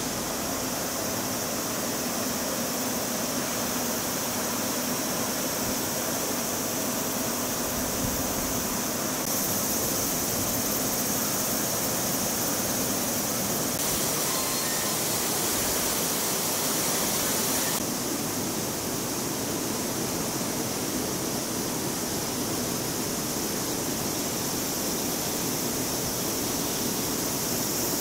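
Steady, high-pitched hiss of a summer cicada chorus in the trees, shifting slightly in level a few times.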